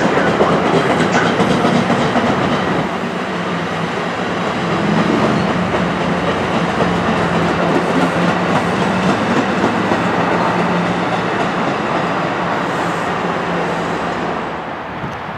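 NJ Transit double-deck MultiLevel commuter coaches passing at speed: a steady rumble of steel wheels on rail with clickety-clack, easing off near the end as the last car goes by.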